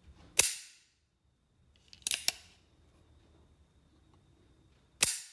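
Hammer of a brass-framed 1858 Remington New Model Army reproduction revolver being cocked and let fall with no cylinder fitted: sharp metal clicks, a single snap about half a second in, a quick double click about two seconds in, and another snap near the end.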